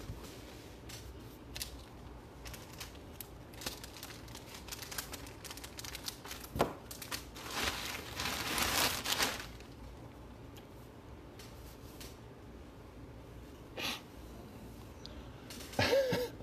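Crinkling and rustling of packaging being handled, with scattered light clicks and ticks; the rustling is loudest for a couple of seconds about eight to nine seconds in.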